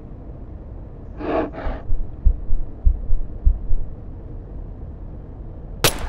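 A sprinter's short, sharp breath in two puffs about a second in, then low heartbeat thumps for under two seconds over a low rumble. Near the end a single sharp crack, a starter's pistol setting off the race.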